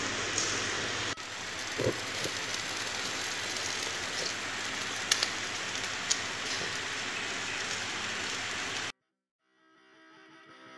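Chicken wings sizzling on a barbecue grill: a steady hiss with a few sharp pops and crackles. It cuts off suddenly about nine seconds in, and guitar music fades in near the end.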